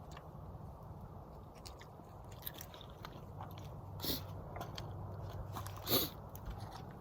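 Quiet, scattered clicks and scrapes of a utensil working soft raw minced beef on a dish during plating, with two sharper clicks about four and six seconds in.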